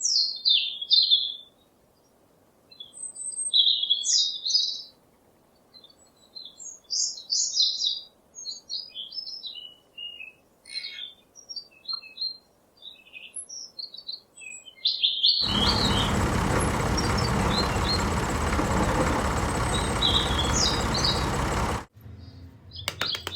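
Small birds chirping and twittering in quick, high bursts. About two-thirds of the way in, a loud, steady rushing noise starts suddenly, runs for about six seconds and cuts off abruptly.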